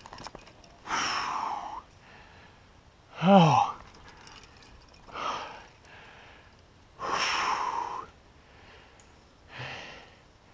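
A climber's hard breathing close to the microphone from the effort of climbing: forceful exhales every two seconds or so. A short voiced grunt about three seconds in is the loudest sound.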